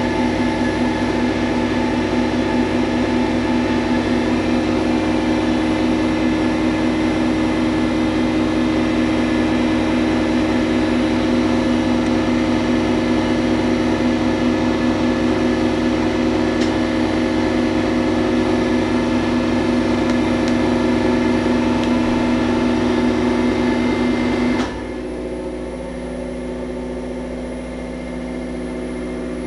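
Kärcher MV 6 P Premium wet-and-dry vacuum cleaner running steadily over the hum of refrigeration compressors. About 25 seconds in the vacuum switches off, and the compressors' steady hum carries on alone.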